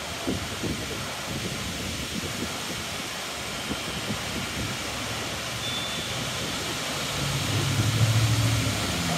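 Strong gusty wind rushing through tree foliage and buffeting the microphone in low thumps. A louder low rumble swells between about seven and nine seconds in.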